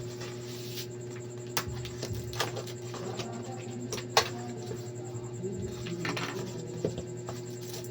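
Handling sounds from unboxing an air cooler: a few sharp clicks and knocks with light rustling, over a steady hum. The loudest click comes about four seconds in.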